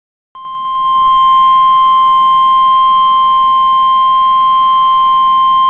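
NOAA Weather Radio's 1050 Hz warning alarm tone coming from a weather radio receiver: one loud, steady, unbroken tone that starts about a third of a second in after a moment of silence and swells up over the first second. It is the signal that a warning message follows, here a severe thunderstorm warning.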